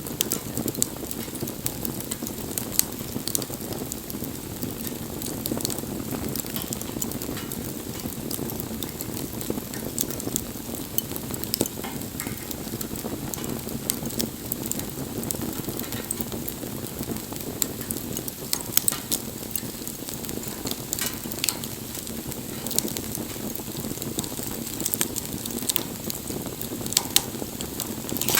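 Campfire burning, with a steady low noise of the flames and frequent sharp crackles and pops.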